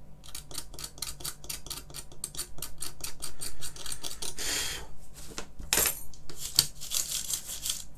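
A thin hand tool clicking and scraping against a stripped computer keyboard frame: a fast run of light clicks, several a second, with a longer scrape about halfway through and a sharper click soon after.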